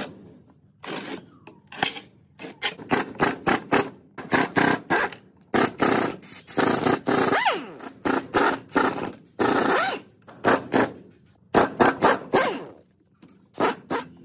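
A rapid, irregular series of short, harsh noise bursts, well over a dozen, from hand work on the rusty cast housing and shaft flange of an old parallel-shaft speed reducer gearbox. There is a brief pause shortly before the end.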